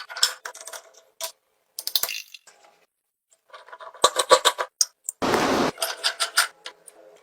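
Metal machine parts clinking, tapping and scraping as they are handled, with a short hissing burst about five seconds in.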